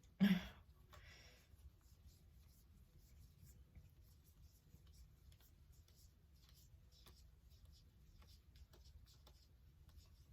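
Tarot cards being handled and sorted through by hand: soft rubbing and sliding of card against card with faint scattered ticks, after one brief louder sound just after the start.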